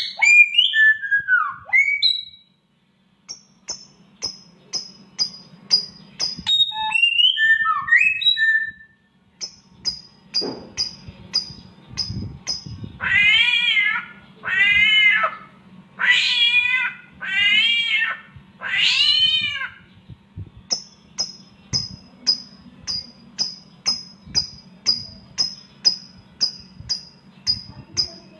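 A samyong songbird mimicking a cat's meow: five long meows in the middle, set among its own chirps, gliding whistles and runs of short high notes repeated about twice a second.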